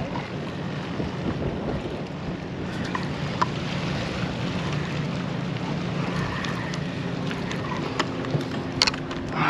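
Wind buffeting the microphone over the sea's background wash, with a steady low hum and a few short sharp clicks.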